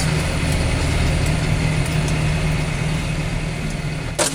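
Tractor engine running steadily with a low hum, and one sharp click near the end.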